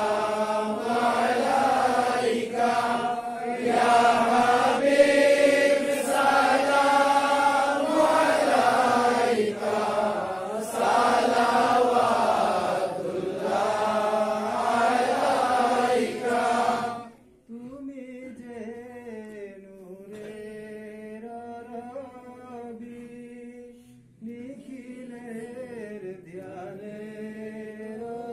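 Voices chanting a slow devotional chant, long drawn-out notes that rise and fall. About two-thirds of the way through, the sound suddenly drops much quieter and duller, and the chanting goes on at the lower level.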